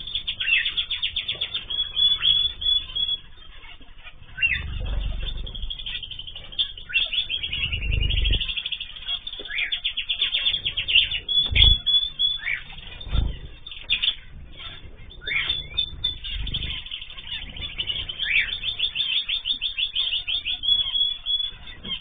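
A mixed aviary of small cage birds (zebra finches and canaries) chirping and twittering in fast high trills. Several low thumps are heard, from wings flapping as birds fly to and from a feeding hand.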